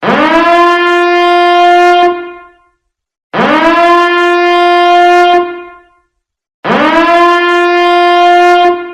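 Biohazard alarm sounding: a horn-like tone that slides up in pitch at its onset, holds for about two seconds and fades away, repeating three times about every three seconds.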